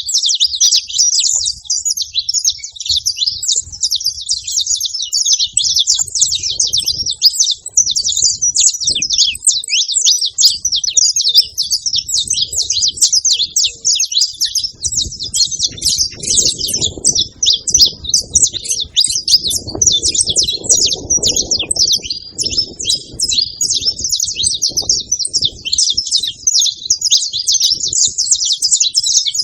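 A flock of saffron finches chirping together at a feeding spot: many birds calling at once in a dense, continuous, overlapping chatter.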